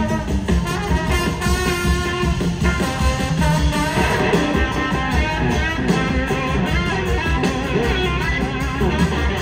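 Live rock band playing an instrumental passage, with a trombone and electric guitar over keyboards and bass.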